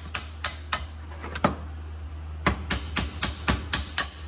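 Hammer striking a steel brake caliper bracket to knock the old brake pads out of it: sharp metallic blows, a few spaced ones at first, then a quicker run of about six near the end.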